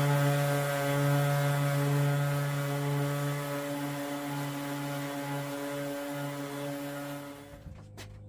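Electric power sander running steadily, with a motor hum under the hiss of abrasive on wood, taking a wooden piece down to thickness. It switches off about seven and a half seconds in and winds down, followed by two sharp knocks.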